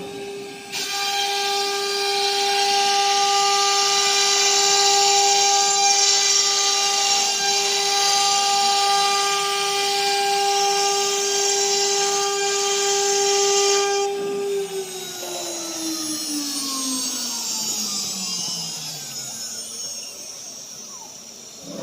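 CNC router spindle motor running at speed with a steady high whine and a loud hiss alongside it; about fourteen seconds in the hiss stops and the whine slides steadily down in pitch as the spindle winds down.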